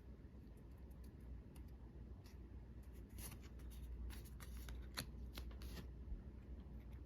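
Magic: The Gathering trading cards being handled and flipped through: faint, irregular soft clicks and rustles, with one sharper click about five seconds in.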